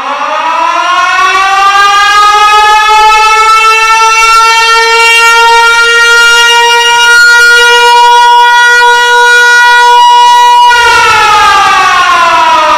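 Loud air-raid siren sound effect: the tone winds up, rising in pitch over about two seconds, holds steady for about eight seconds, then winds down, falling slowly in pitch near the end.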